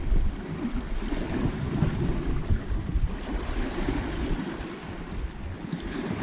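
Wind buffeting the microphone in uneven gusts over the wash of sea surf.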